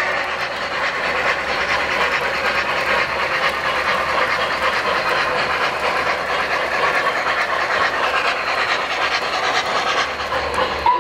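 O-gauge model train running on the layout: a steady rolling rush with rapid fine clicking of wheels on the track. A whistle starts to blow right at the end.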